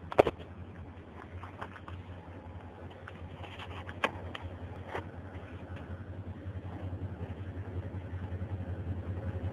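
Diesel locomotive engine running with a low, fast throb that grows louder as it approaches. A few sharp clicks stand out, the loudest just after the start.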